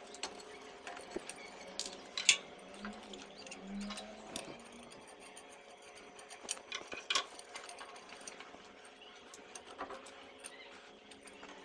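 Small irregular metal clicks and taps as the nuts, washers and handle of an electric iron are unscrewed and handled, with the sharpest clicks about two seconds in and again about seven seconds in.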